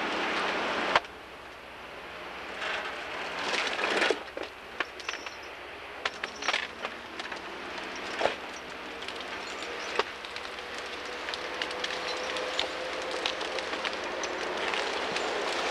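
Timberjack 618 logging machine's engine running, with scattered sharp cracks and snaps. The sound drops suddenly about a second in, then slowly grows louder, with a faint whine rising slightly in pitch in the second half.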